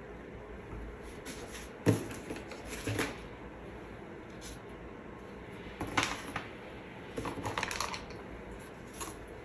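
Scattered small clicks and knocks: a sharp knock about two seconds in, another about six seconds in, and a quick run of light clicks between seven and eight seconds.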